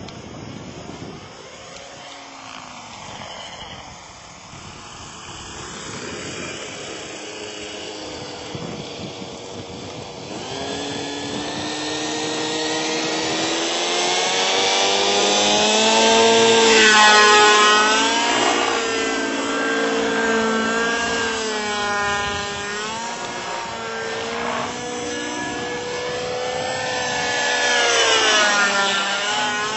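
Robbe Millenium 2 radio-controlled model helicopter flying. Its engine and rotor note grows louder about a third of the way in and sweeps up and down in pitch several times as it manoeuvres and passes close.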